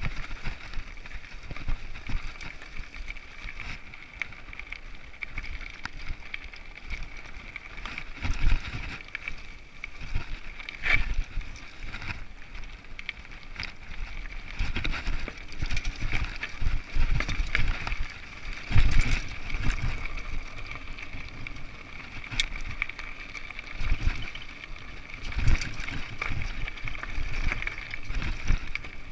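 Mountain bike rolling down a rocky dirt singletrack: continuous tyre and chassis rattle over gravel and stones, with several sharper jolts scattered through as the bike hits rocks.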